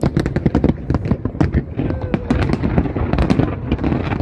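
Aerial fireworks shells bursting in rapid succession: a dense, unbroken stream of bangs and crackles, many a second.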